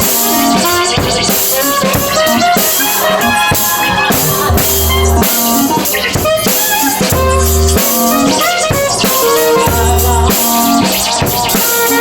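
Live band playing an improvised piece: a drum kit keeps up a run of regular hits over guitar and a long low bass note that comes back about every two and a half seconds.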